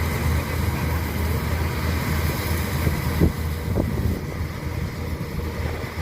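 Rice combine harvester running steadily in the field, its engine and machinery making a continuous low drone, with two brief knocks a little past the middle.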